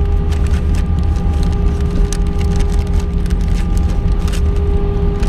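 Airbus A319 cabin noise while taxiing after landing: a steady low rumble with a constant engine hum, and scattered light rattles and clicks.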